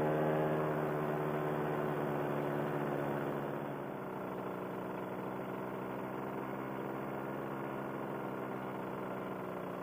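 Paramotor engine running steadily in flight, a droning note that eases slightly about three and a half seconds in.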